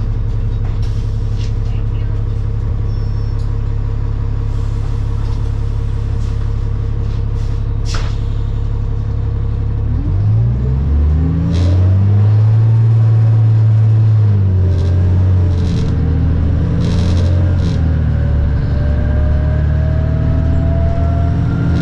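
A New Flyer D40LFR diesel city bus heard from inside the cabin: a steady low engine hum, then about halfway through the engine revs up as the bus accelerates, its pitch rising and dropping through gear changes, with a whine climbing slowly in pitch near the end.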